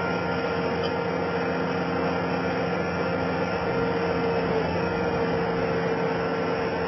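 Skid steer loader running steadily, its engine and hydraulics making an even mechanical noise with a steady whine.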